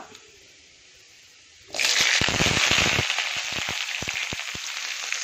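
Chopped green chillies and onion dropped into hot coconut oil with spluttered mustard seeds in an aluminium wok: after a short quiet stretch, a sudden loud sizzle with crackling pops starts and slowly eases.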